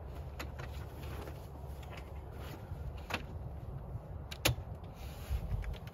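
Wind buffeting the microphone with a steady low rumble, over a few sharp clicks and knocks from the arms of a Rhino-Rack Batwing awning being folded in, the loudest about four and a half seconds in.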